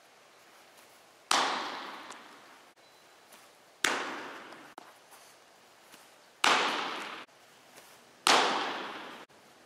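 Four sharp smacks of baseballs striking a catcher's gear during blocking practice, each followed by a long echo in a large indoor hall.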